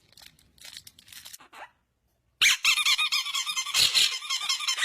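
Faint crinkling at first; then, after a short silence, a sudden loud, continuous chorus of many high, wavering squeaks overlapping one another.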